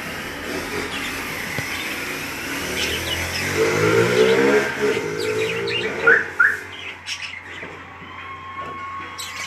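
Pet lovebirds chirping and twittering, with two sharp, loud chirps a little past the middle. A low engine hum of a passing vehicle swells and fades just before them.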